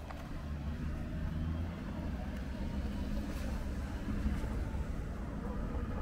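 A motor vehicle's engine running close by: a low rumble that swells over the first second and then holds steady.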